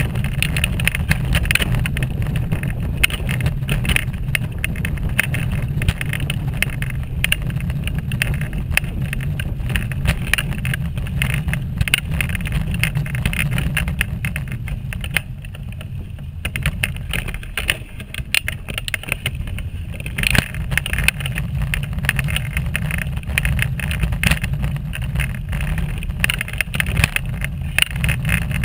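Wheelchair rolling along a rough, unfinished path: a steady low rumble with many small clicks and rattles, dropping a little for a few seconds past the middle.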